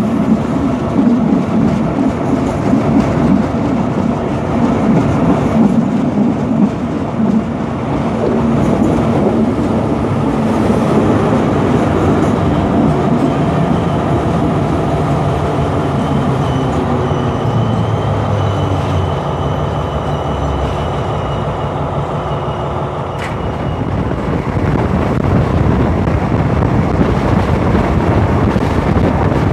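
Thai railway diesel locomotive running just ahead, heard together with the train's wheels clattering over the rails. The engine's note drops lower about a third of the way in.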